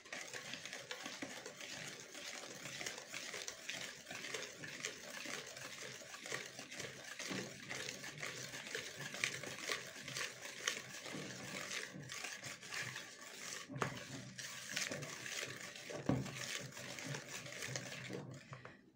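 Metal wire hand whisk beating a thick, wet cocoa and egg-white batter in a plastic bowl: a fast, continuous run of wet slapping and scraping strokes that stops near the end.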